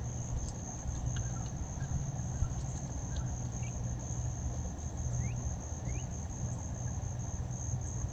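A steady high-pitched insect trill, with two short rising bird chirps about five and six seconds in, over a low steady rumble.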